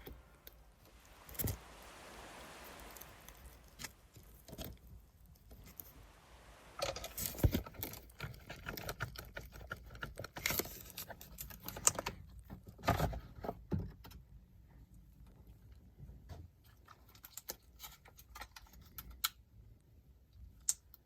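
Scattered metallic clicks and clinks of hand tools and loose parts being handled, at irregular times, the loudest a little after seven seconds and near thirteen seconds, with a stretch of soft rustling in the first few seconds.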